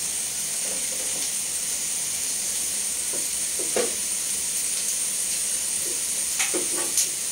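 Steady hiss from a two-burner gas stove, one burner flaming with no pan on it and a pot cooking on the other. A few light knocks come near the middle and toward the end.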